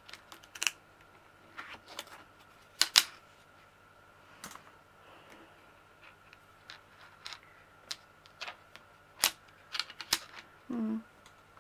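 Light plastic clicks and taps as a small plastic bead tray is set down and shifted against a lap desk's plastic ledge. The taps are scattered and irregular, and the sharpest pair comes about three seconds in.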